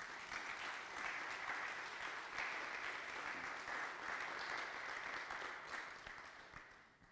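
Congregation applauding, steady and then dying away near the end.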